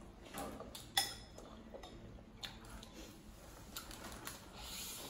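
Eating and shell-peeling sounds from a seafood boil: scattered small clicks and cracks of prawn and crab shells being handled by hand, the sharpest about a second in. A brief soft hiss comes near the end.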